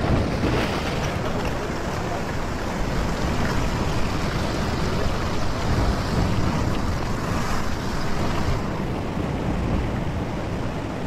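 Sea surf washing and breaking over a rock ledge, with a wave crashing over the rocks at the start, and wind on the microphone.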